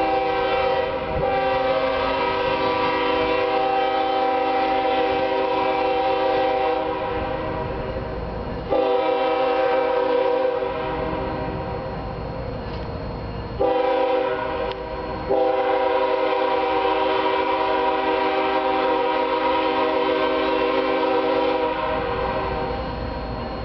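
Diesel locomotive air horn on the approaching BNSF business train, a multi-note chord blown in the grade-crossing pattern: two long blasts, a short one, then a long one. A low rumble of the train runs underneath.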